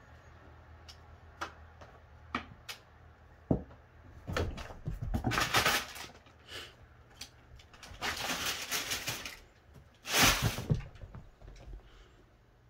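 Cats scrambling in a cardboard box of crumpled brown packing paper: sharp ticks, then three long bursts of paper rustling and scratching with a few thumps, the loudest about ten seconds in.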